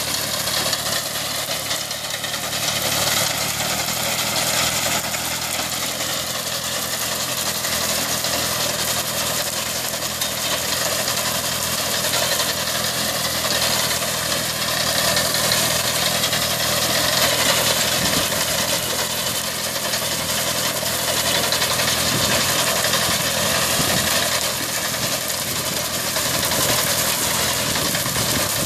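Kubota 30 hp water-cooled diesel engine of a self-propelled reaper-binder running steadily while the machine cuts wheat, with a constant rattle and whir of machinery over the engine note.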